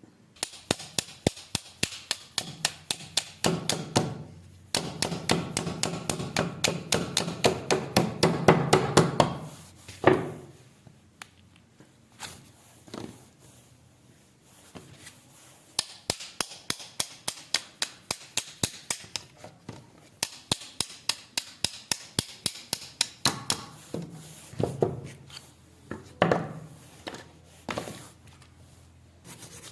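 Hammer tapping on a pair of rusty steel pliers in quick repeated strikes, about four a second. The strikes come in two long runs with a quieter pause in the middle.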